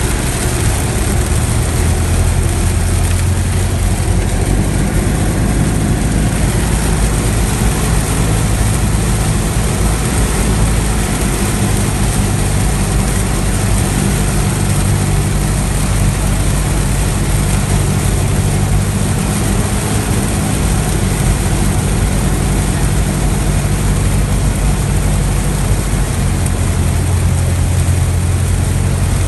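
Cessna 172's four-cylinder piston engine and propeller running steadily, a low drone under a constant hiss.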